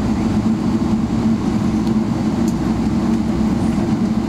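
Steady, unbroken rumble of a Boeing 777-300ER's GE90 jet engines, with a constant low hum and no distinct changes.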